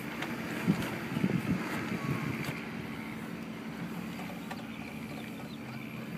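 Steady low hum with some wind on the microphone, and a few light knocks and rustles in the first two and a half seconds.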